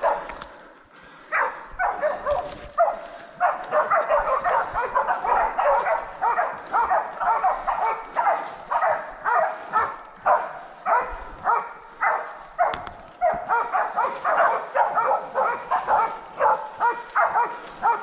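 Hunting dogs bailing a wild boar, barking in a rapid, unbroken run of about two to three barks a second that starts about a second and a half in: the steady bay bark that tells the hunters the pig is held at bay.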